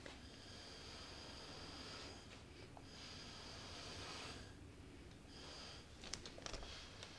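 Faint breath blown through a plastic drinking straw onto wet acrylic paint, pushing the paint outward into a bloom: three soft hissing puffs, two long and a short last one, then a few light clicks near the end.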